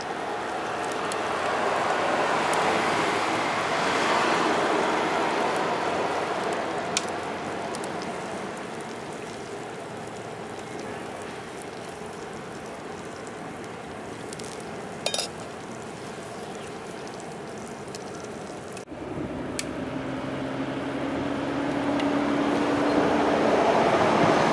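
Food sizzling and frying in a pan on a wood stove, a steady hiss with a couple of small clinks. After a sudden change about two-thirds of the way through, a rushing noise with a faint low hum swells toward the end.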